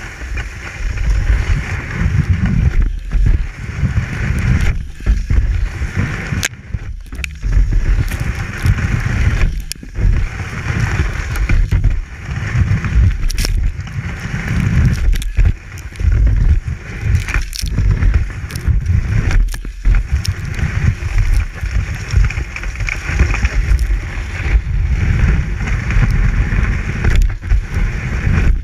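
Cross-country ski sliding and scraping over packed snow in classic strides, the swish swelling and dropping with each stride, with a heavy rumble and occasional knocks from the boot-mounted camera.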